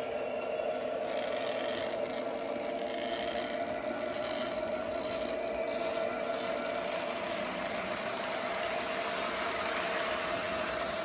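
A three-rail O gauge model train, a 4-4-0 steam locomotive pulling freight cars, rolling past close by: a steady motor hum with the wheels rattling and clicking over the rails.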